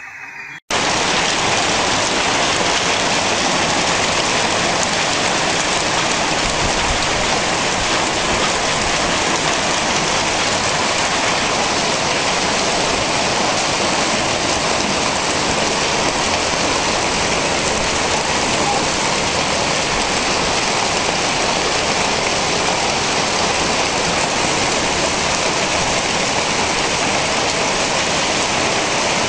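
Heavy rain pouring down steadily onto roof tiles and floodwater, a dense even hiss that cuts in suddenly about a second in.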